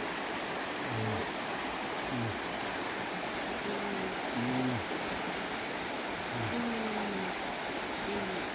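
Shallow river rushing over stones, a steady hiss of water. Short low pitched tones come in on top about once a second.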